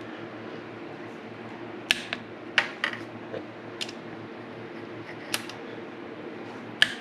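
Sharp, irregular metal clicks and taps of a small torque wrench and socket on exhaust manifold bolts as they are tightened, about seven in all, over a steady low hum.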